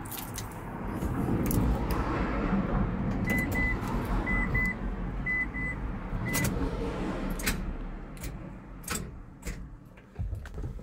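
Inside the cab of a Nissan Clipper van with a flat battery: keys jangle at the ignition and a warning chime beeps in short pairs, three pairs and then a single beep. Then come a few separate sharp clicks as the key is worked, and no engine starts.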